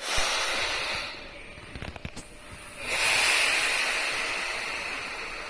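Compressed air hissing from the pneumatic system of a Sotetsu 8000 series train: a hiss that drops away about a second in, a few sharp clicks around two seconds in, then a sudden louder hiss about three seconds in that slowly fades.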